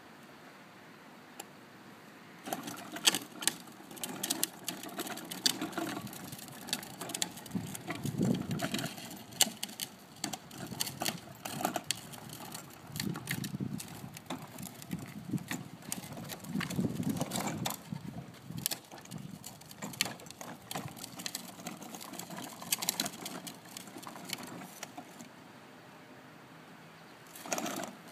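Little Tikes Cozy Coupe toy car's hard plastic wheels rolling over asphalt, with a rumble and many rattling clicks and knocks. The rolling starts about two seconds in and stops a few seconds before the end, followed by one short rattle.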